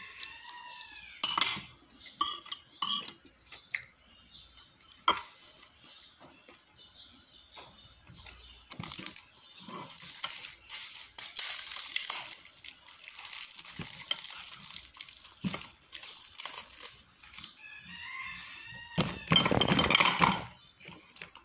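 A spoon clinks against the plate a few times. Then comes a long stretch of crinkling plastic and cardboard rustle as a juice box's straw is unwrapped, and a louder crackling burst near the end as the straw is pushed into the carton.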